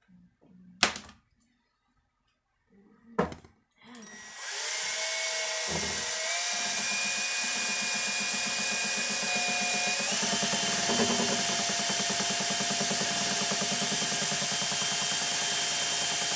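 Handheld power drill spinning a paddle mixer through epoxy resin in a plastic bucket, running steadily for about twelve seconds, its motor whine stepping up in pitch twice as the speed is raised. Two sharp knocks come in the first few seconds, before it starts.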